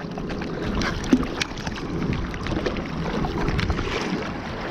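Sea water sloshing and splashing against a camera held at the surface, with small irregular splashes as the bodyboarder moves in the water.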